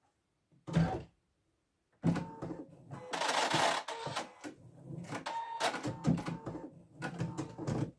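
Irregular clicking and rattling of plastic thread spools being handled beside an embroidery machine, starting about two seconds in, after one short knock about a second in.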